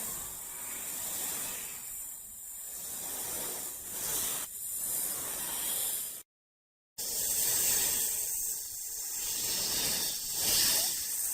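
Snake hissing: a long, steady airy hiss that cuts off abruptly about six seconds in, then starts again after a brief silence and carries on.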